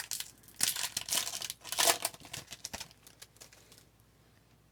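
A 2020-21 Upper Deck Series 2 hockey card pack wrapper being torn open and crinkled: a run of crackling rustles that dies away after about four seconds.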